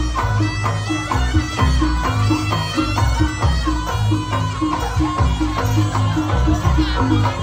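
Javanese jaranan ensemble music: a reedy slompret melody over kendang drums and gong strokes, with a steady repeating beat.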